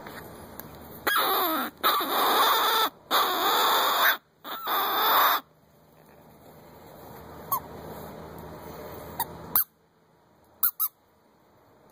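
Knight & Hale 'Shaft' predator call sounding a run of loud squalling calls that waver in pitch, in several blasts over about four seconds. Later come a few short, sharp squeaks, spaced seconds apart.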